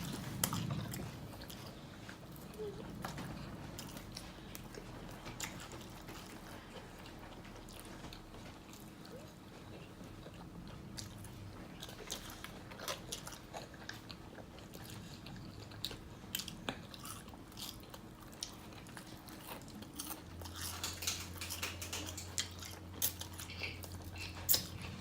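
Close-up eating sounds: biting into and chewing fried chicken, with scattered crisp crunches of the breading.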